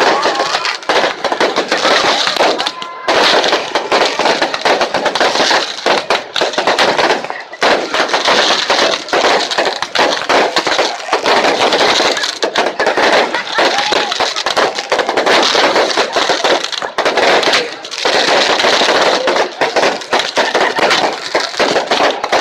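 Fireworks going off in a dense, continuous stream of bangs and crackles, with a few brief lulls.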